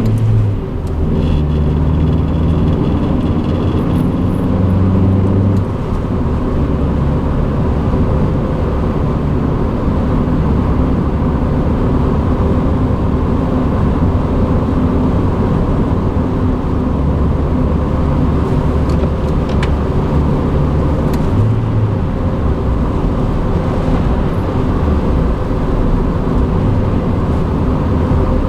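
Inside a moving 1989 Honda Accord: the four-cylinder engine's hum is clear for the first five seconds or so, then a steady rumble of road and tyre noise takes over. The rattling knock from the failing water pump pulley is hard to pick out under the road noise.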